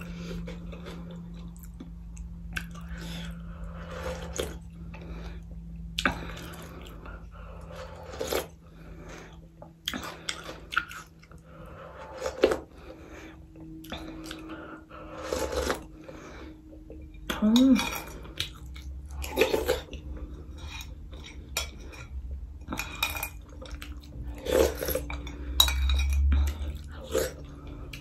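Metal spoon clinking and scraping against a ceramic soup bowl, then sips and slurps of broth drunk straight from the bowl, in a run of short clinks and knocks.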